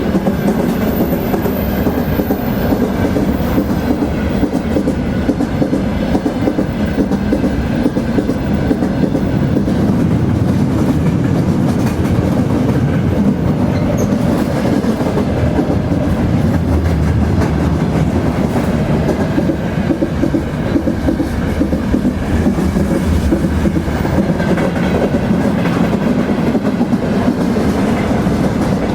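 A train rolling along the track: steady, continuous running noise of wheels on rails, deepest in the low range.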